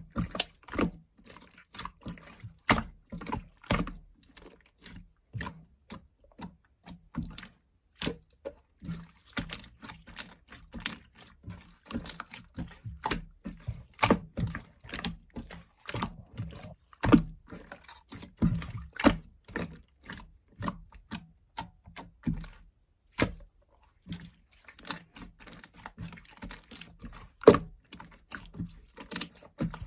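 Large marbled clear slime being worked by hand, making an irregular run of sharp clicks and wet pops, several a second.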